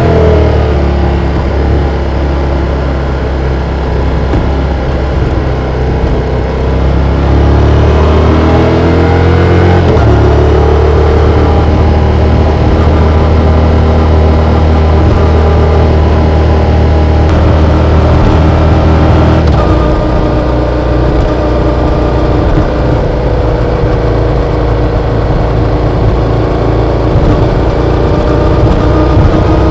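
Yamaha XSR700's 689 cc parallel-twin engine running on the road, its pitch climbing as it pulls and then dropping abruptly about ten and twenty seconds in, with rushing wind noise underneath.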